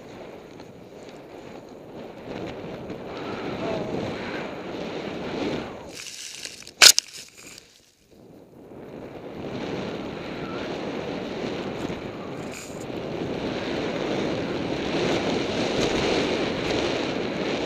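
Wind rushing over the microphone of a helmet-mounted camera as a skier runs fast through deep powder, the skis hissing through the snow and the rush growing louder toward the end. About seven seconds in the sound briefly drops out around one sharp knock.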